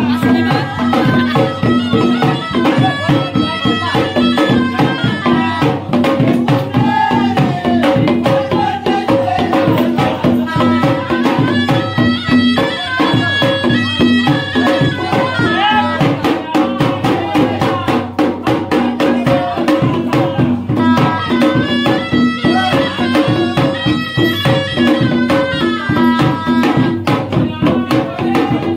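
Traditional Indian folk music with drums and fast, steady percussion playing over a melody.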